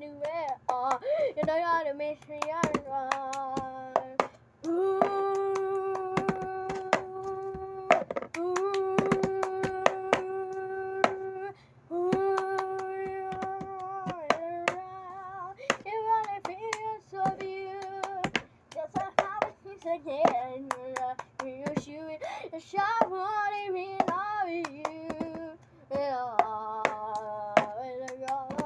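Cup song: hands clapping and a plastic cup being tapped and slapped on a table in a repeating rhythm, with singing over it that includes several long held notes.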